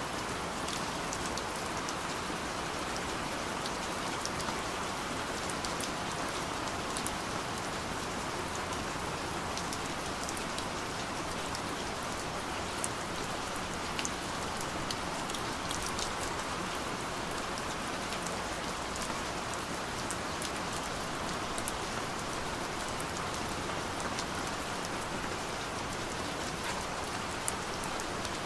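Steady rain: an even hiss with scattered sharper drop ticks, unchanging throughout.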